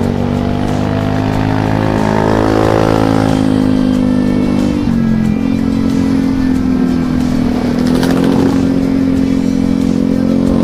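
Motorcycle engine running under way, heard from the bike itself, with wind noise over it. Its pitch rises over the first few seconds, drops suddenly about five seconds in, then holds fairly steady.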